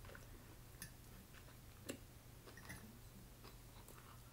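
Near silence: a few faint clicks of a fork on a plate and soft eating sounds over a steady low hum. The sharpest click comes about two seconds in.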